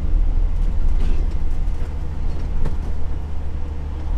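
Semi-truck's diesel engine and road noise heard inside the cab while driving: a steady low rumble.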